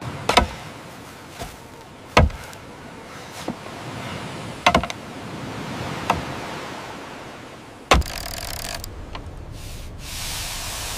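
A handful of sharp knocks a second or two apart over a steady rushing noise, which turns brighter and hissier near the end.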